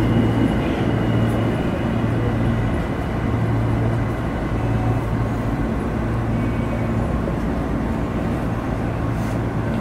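Tokyo Metro Ginza Line subway train standing at the platform with its doors open: a steady low hum from the train's equipment over a wash of station noise.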